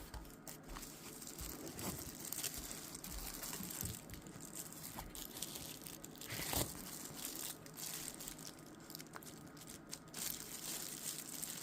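Soft crinkling and rustling of plastic packaging as a motherboard in its plastic pouch is handled and lifted out of its box, with a louder crunch about six and a half seconds in.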